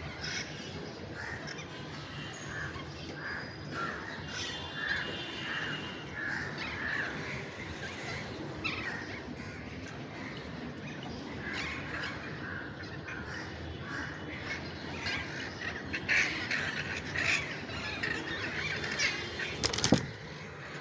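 Ringneck parrot giving repeated short squawking calls, with louder calls in the last few seconds and a sharp click about 20 seconds in.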